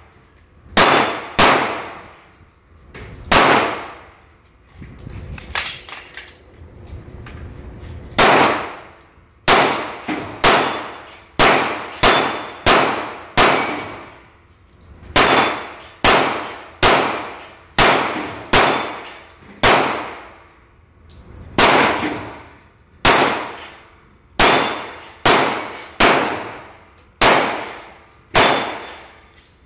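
Handgun fired shot after shot, about two dozen rounds, mostly single shots half a second to a second apart with a few longer pauses, each report ringing out in an enclosed indoor range.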